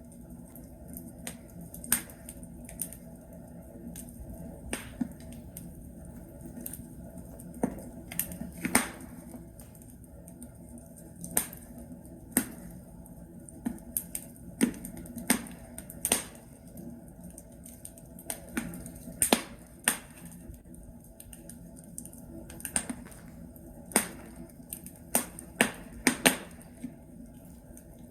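Wood fire in a fireplace crackling: burning logs popping and snapping at irregular intervals over a low steady hiss, the pops coming thicker near the end.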